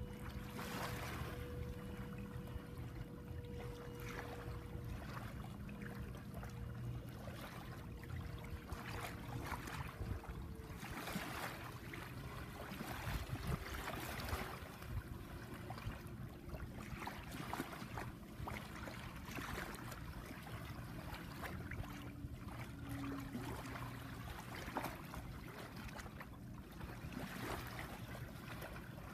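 Shallow tidal water lapping and trickling over sand at the water's edge, small ripples washing in and fading every few seconds over a low steady rumble. A faint steady hum slowly drops in pitch through the first half.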